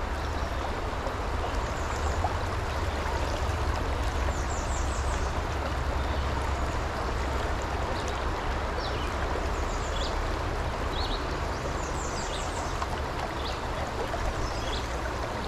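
Fast, rocky mountain creek rushing over rocks: a steady wash of water, with a few short high chirps over it now and then.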